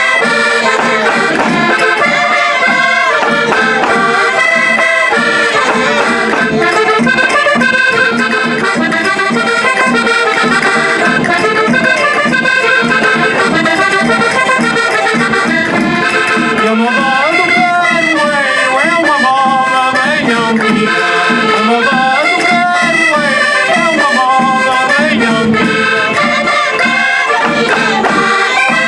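Portuguese folk-dance music led by an accordion, playing continuously.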